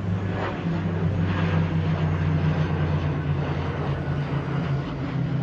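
Jet airliner engines running with a steady low drone and a rushing haze above it that swells now and then.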